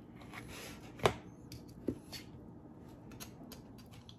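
Knife and fork cutting food on a paper plate: one sharp click about a second in, with fainter clicks and scrapes around it.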